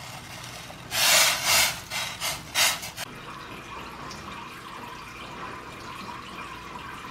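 Water splashing in a stainless-steel bowl of butter, in several short, loud bursts over about two seconds starting about a second in, followed by a steady faint hiss.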